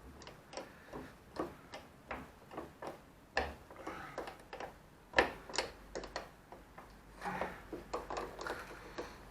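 Irregular metallic clicks and taps of hand tools working on fittings as parts are being undone, a few clicks a second, with one sharper knock about five seconds in.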